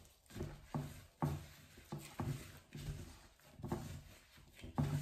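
Gloved hands kneading a glutinous rice and tapioca flour dough in a glass bowl: a run of soft, uneven squelching thuds, about two a second.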